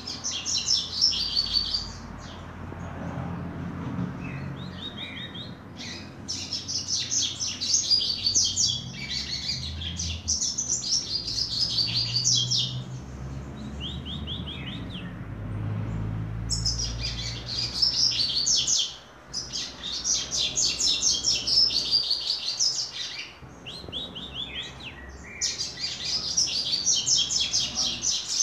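A young caged double-collared seedeater (coleiro) singing its song again and again in phrases of rapid, high, fast-repeated notes, each a second or three long with short pauses between. The bird is still polishing its song, which is not yet fully fixed.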